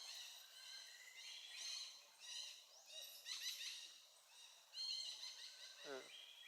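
Repeated high-pitched chirping calls, one or two a second, with a short cry falling steeply in pitch near the end.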